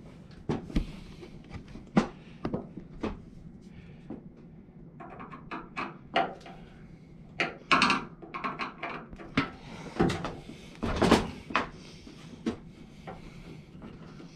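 Irregular clicks, taps and knocks of a hand screwdriver working at the front-panel screws of an LG WM2044CW front-load washing machine, with hands bumping the cabinet. A few louder knocks come past the middle.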